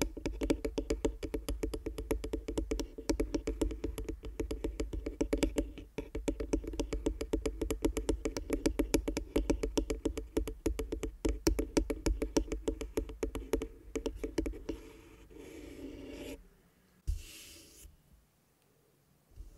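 Fingertips tapping and scratching rapidly on a wooden tabletop close to the microphone: a dense run of quick light taps that gives way about fifteen seconds in to a soft rubbing. Near the end come two brief swishes of a hand moving near the mic.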